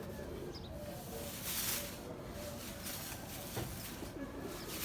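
Domestic pigeons cooing faintly, with a brief hiss about one and a half seconds in.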